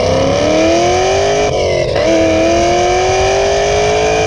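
Cammed Chevrolet Camaro SS V8 heard through its MBRP exhaust, accelerating hard with the pitch climbing steadily. A gear change briefly breaks it about a second and a half in, and then it climbs again.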